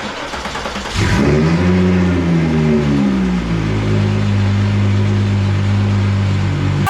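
Turbocharged VR6 engine starting about a second in, flaring up high and then dropping back to a steady idle.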